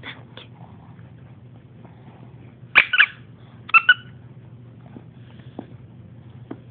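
Small dog giving short, high yips while tugging at a plush toy in play, in two quick pairs about three and four seconds in.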